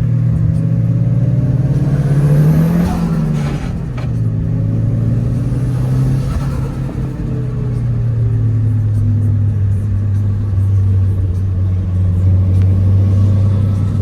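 Turbocharged Nissan KA24 four-cylinder in an S13 running at speed through the ISR turbo kit and HKS Hi-Power exhaust. The revs climb about two seconds in with a rising turbo spool whistle, then drop back. A second, fainter whistle comes around six seconds. After that the engine holds a steady drone.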